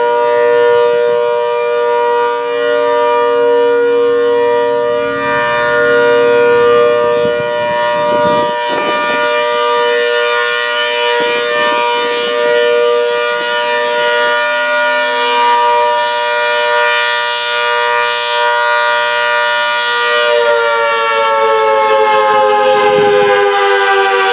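ACA Hurricane 130 MKII electromechanical outdoor warning siren sounding a steady, loud chord of several tones, the steady Alert signal. About 20 seconds in, the pitch starts to slide slowly downward.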